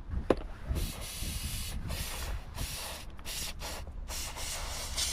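Parts of a disassembled vehicle winch being cleaned of oily sludge: irregular bursts of hissing, scrubbing noise, with one sharp click about a third of a second in.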